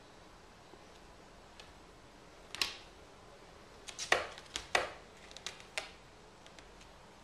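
Cat's claws raking a carpet-covered scratching post: one scratch a little over two seconds in, then a quick run of about six short scratches over the next two seconds, with faint clicks between.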